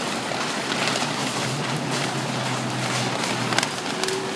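Large hailstones pelting a building and the ground outside: a dense, constant clatter of impacts with sharper individual cracks, a cluster of louder strikes about three and a half seconds in.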